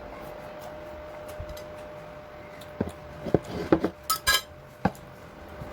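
Cutlery and dishes clinking: a quick cluster of knocks and clinks in the second half, over a faint steady hum.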